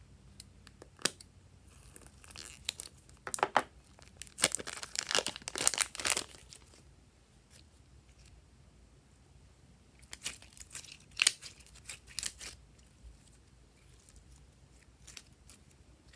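Crinkling, crackling handling noise close to the microphone, in two spells: a longer one about two to six seconds in, and a shorter one from about ten to twelve and a half seconds, with a few scattered clicks in between.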